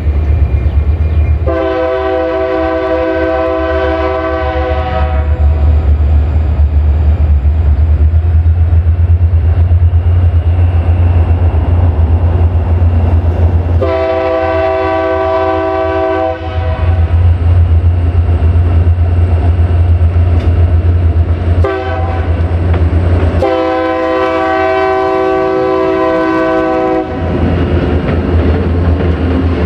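Multi-chime air horn of an approaching EMD diesel freight locomotive sounding long, long, short, long, the grade-crossing signal, over the steady low drone of the diesel engines. The engine noise grows louder near the end as the locomotives pass close by.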